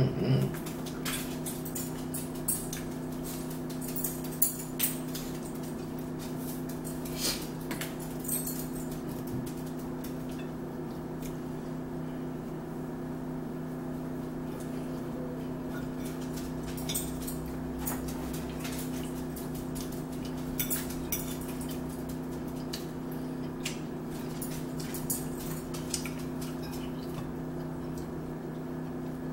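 Forks clicking and scraping on plates as two people eat, scattered sharp clicks every second or two over a steady low hum.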